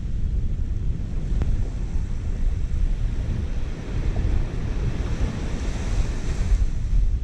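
Wind buffeting the microphone over the wash of small waves on a beach, with a brighter hiss of surf swelling from about four seconds in and dropping away near the end.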